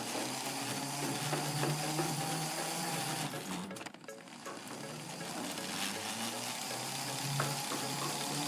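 Lego Power Functions M and L motors whirring through plastic gears as the small RC car drives, a steady hiss with a wavering whine. The whine breaks off briefly about three and a half seconds in, then starts again.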